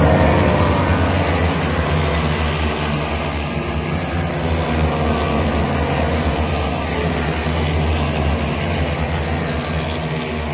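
Racing motorcycles at speed on a circuit, several engines at high revs blending into one steady drone. The nearest bike's pitch falls as it goes past at the start.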